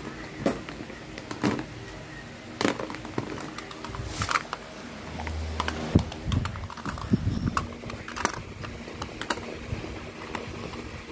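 Handling noise: irregular clicks and light knocks as plastic toys are touched and moved, with a short low rumble about five seconds in.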